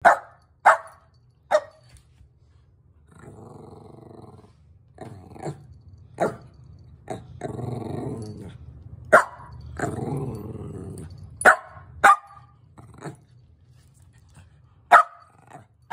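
A Shetland sheepdog barking in about ten short, sharp single barks, with three longer growling stretches in between, a playful demand to be chased.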